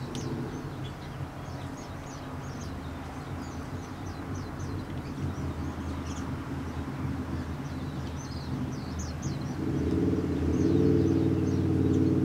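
Birds chirping in short, quick calls over a steady low engine-like hum, which grows louder about ten seconds in.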